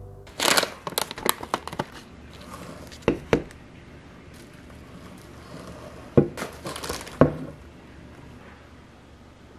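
Packaging crinkling with quick clicks for the first couple of seconds, then a plastic supplement bottle and a glass jar set down on a wooden tabletop: two knocks about three seconds in, and more knocks around six and seven seconds.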